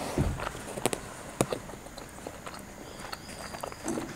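Someone eating by hand: chewing, with a few sharp clicks and taps as naan is torn over a plate.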